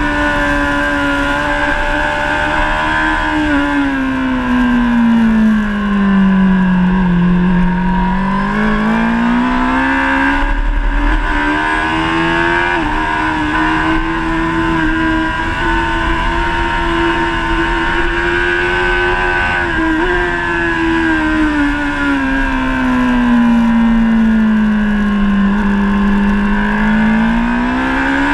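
Honda CBR1000RR SP Fireblade's inline-four engine running hard on a track lap, with a rush of wind. Its revs sink twice, once about a quarter of the way in and again near the end, as the bike slows for corners, then climb back as it accelerates away.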